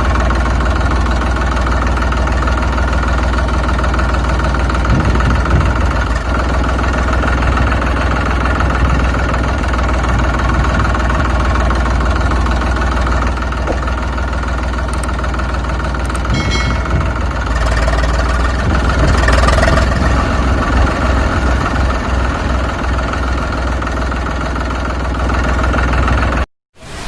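An engine idling steadily with a low, even hum. It cuts off abruptly near the end.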